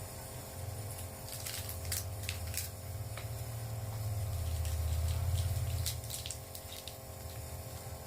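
Electric nebulizer compressor running with a steady low hum that swells in the middle and eases back, with a few faint clicks.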